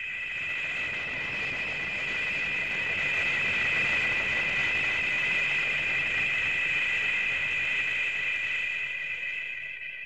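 Showa Gamera film sound effect: a steady jet-like whistling whine of several close high tones over a rushing hiss, swelling over the first few seconds and easing off near the end.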